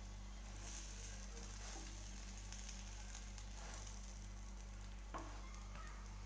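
A puran poli sizzling gently in ghee on a hot tawa. A wooden spatula scrapes and presses the flatbread against the griddle a few times, the sharpest scrape about five seconds in. A steady low electrical hum runs underneath.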